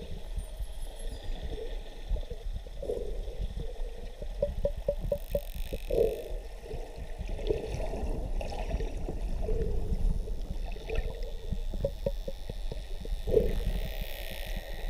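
Underwater sound picked up by a camera just below the surface: a steady low water rumble with gurgling, and a couple of short runs of rapid clicks about five seconds in and again near the end.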